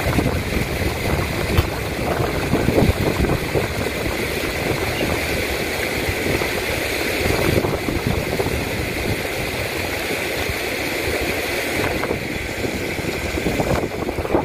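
Steady rushing of falling water, with wind gusting on the microphone.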